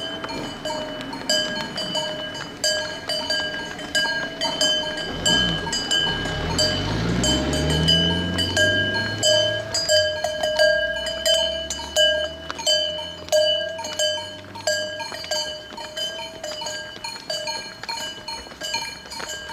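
Cowbells on livestock clanking irregularly over a steady ringing tone. A long, low moo rises in pitch from about five seconds in to about nine seconds.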